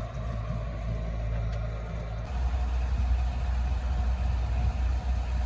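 A sailboat's inboard engine running steadily while motoring, a low hum that shifts and grows a little louder about two seconds in.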